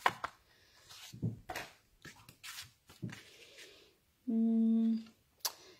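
Cardstock and die-cut paper layers rustling and tapping lightly on a tabletop as they are lifted and laid in place, then a short closed-mouth "hmm" of a woman weighing up the design about four seconds in, and a single sharp click near the end.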